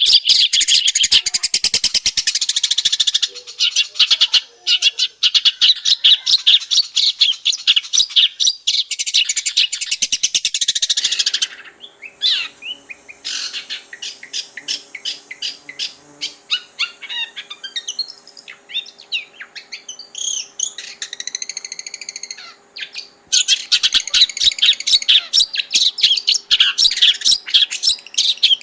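Long-tailed shrike singing a loud, fast run of chattering notes. After about eleven seconds the song breaks off into quieter, scattered whistles and chirps, and the loud chattering starts again near the end.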